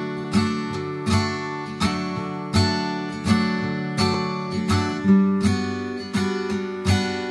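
Background music: acoustic guitar strumming chords in a steady rhythm, about one strum every three-quarters of a second.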